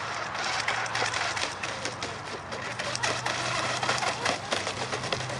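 Radio-controlled speedboat running fast across the water, its motor heard as a steady, crackly mechanical buzz.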